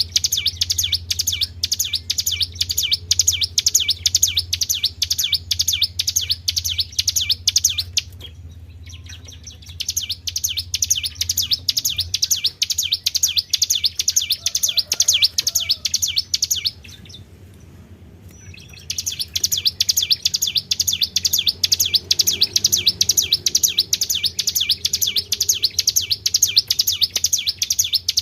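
A songbird singing a high-pitched, rapid run of repeated notes: a 'tribel' trilling song. It comes in three long stretches broken by two pauses of about two seconds, over a low steady hum.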